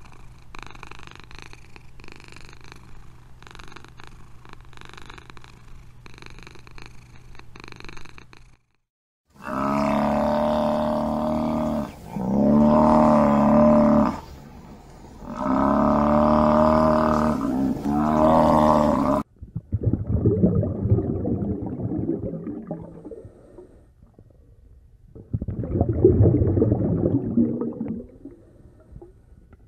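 Domestic cat purring, a soft pulse about one and a half times a second. After a short gap, a Cape buffalo gives four long, loud, pitched calls in quick succession. Then come bursts of rough rumbling noise.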